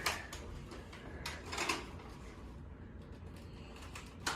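Faint plastic clicks and sliding sounds from a Nerf blaster being handled, a few at the start, a pair at about a second and a half in, and one near the end.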